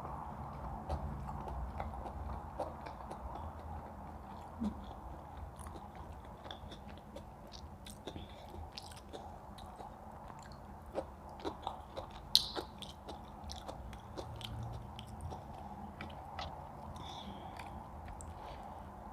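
People chewing and biting food with mouth-noise clicks, over a steady background hum. A sharper click comes about twelve seconds in.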